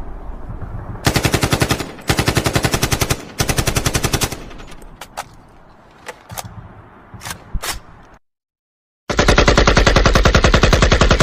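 AK-56 assault rifle firing on full automatic: three rapid bursts, then a few single shots. After about a second of silence comes one long continuous burst near the end.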